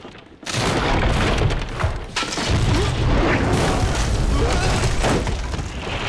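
A sudden deep rumbling boom breaks in about half a second in and carries on as a heavy rumble with crackle and hiss over it.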